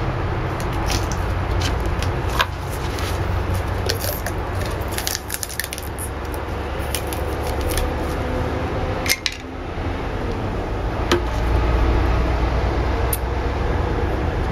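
Sharp metallic clicks, taps and scrapes from a metal Plasti Dip can being pried open and handled against a glass jar. The clicks come in a quick run in the first few seconds, then as a cluster about nine seconds in, with a few single taps after that, all over a steady low hum.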